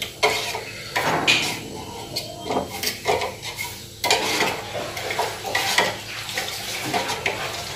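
Steel spoon stirring cereal mix into milk in a small steel pan, scraping and clinking against the metal in irregular strokes.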